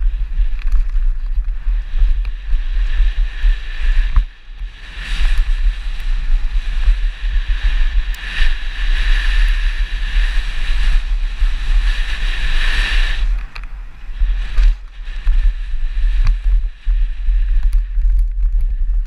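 Downhill mountain bike ridden fast over a dirt and gravel trail, heard from a helmet camera: heavy wind buffeting on the microphone, with tyre noise and rattles over the ground and a louder hiss between about five and thirteen seconds in.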